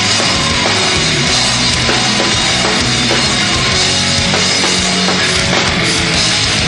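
Rock band playing live, electric guitars over a drum kit, in an instrumental stretch without vocals.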